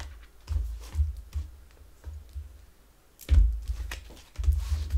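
A deck of tarot cards being shuffled and handled: crisp card clicks and rustles in several separate bursts, each with dull thumps, the loudest about three seconds in.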